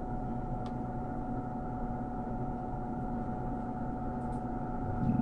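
Steady background hum with a thin high whine, broken by a few faint light clicks from handling the wires and connector.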